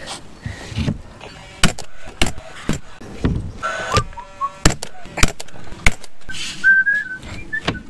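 Paslode gas-powered cordless nailer firing a series of sharp single shots, nailing fibre-cement cladding planks to the wall, with about half a second to a second between shots.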